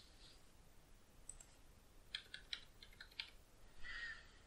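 Faint computer keyboard typing: a quick run of about six keystrokes entering a short password, followed near the end by a brief soft hiss.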